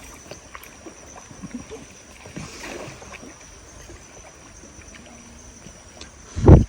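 Paddles dipping and swishing through the water beside a small inflatable boat, soft and irregular, with one brief loud low thump near the end.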